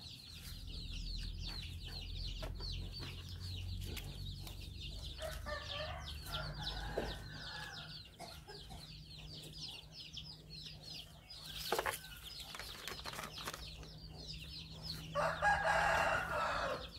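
A rooster crowing twice, about five seconds in and again, louder, near the end, over a steady high chirping and a low hum. A single sharp knock comes about twelve seconds in.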